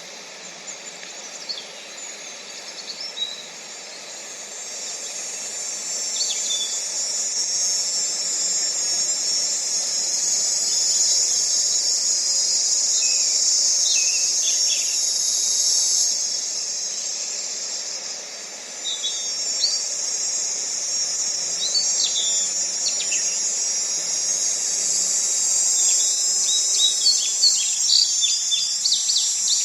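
A dense, high-pitched insect chorus that swells louder over the first ten seconds, sags briefly about two-thirds of the way through, then comes back. Short bird chirps are scattered through it, crowding together near the end.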